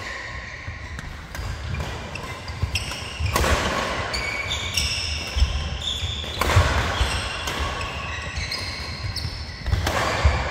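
Badminton doubles rally: rackets striking the shuttlecock, shoes squeaking on the court mat and feet thudding, in a large echoing hall. There are several short high squeaks and a few louder, harder hits.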